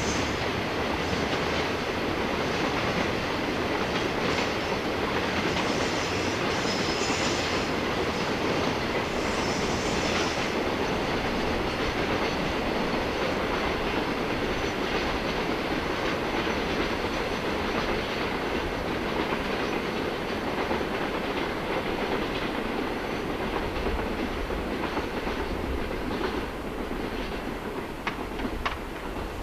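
Long container freight train of Koki flat wagons rolling past on the rails in a steady rush of wheel and track noise, easing off a little near the end as the last wagons go by.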